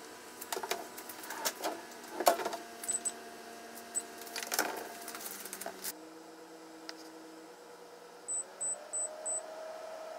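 Kitchen prep sounds on a wooden cutting board: a string of light knocks and rustles as paper towel and food are handled and set down. Then it goes quieter, with four short high-pitched beeps close together near the end.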